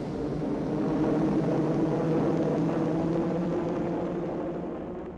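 Propeller aircraft engines droning steadily, swelling about a second in and fading away near the end.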